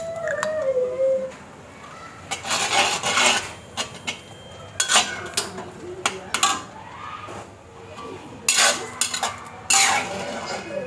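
A cooking utensil scraping and clattering against a pan in several short strokes, stirring the sauces into the dish.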